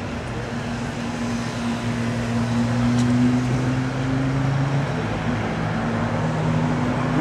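Steady low hum of a motor vehicle's engine over outdoor traffic noise. It grows a little louder over the first few seconds and shifts in pitch about five seconds in.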